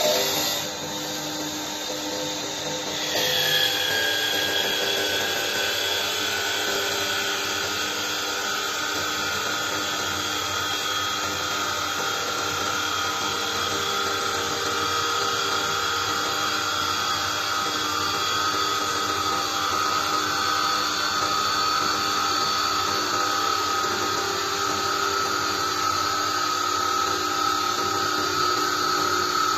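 Mini CNC wood turning lathe cutting a wooden makeup brush handle: a steady machine whine with the hiss of wood being cut. It gets louder about three seconds in, and the whine then slowly falls in pitch.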